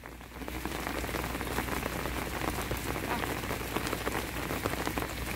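Rain falling steadily, with many separate drop taps close by; it grows a little louder about half a second in.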